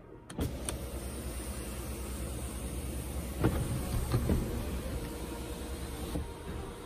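Electric motor of a car's panoramic sunroof running as the sunshade and glass slide open: a steady hum that starts suddenly, with a few clicks partway through.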